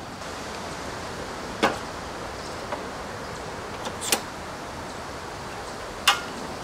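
A portable butane camp stove clicking as its controls are worked by hand: three sharp clicks about two seconds apart, with a couple of fainter ticks between them, over steady outdoor background.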